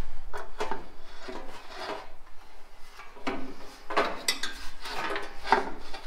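Socket ratchet being worked on a bolt in a steel radiator support, giving irregular metallic clicks and clanks that grow busier about halfway through.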